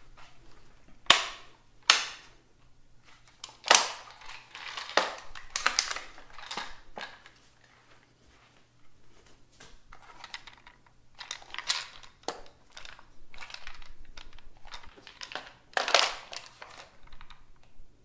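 Ruger 10/22 rifle being reloaded: a series of sharp metallic clacks, clicks and rattles as the magazine is handled and seated and the action is worked, with a quieter gap around the middle. Each clack rings briefly off the hard tiled walls of the small bathroom.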